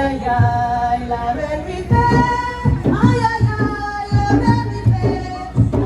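Music with a singing voice holding long, sliding notes over a steady low beat.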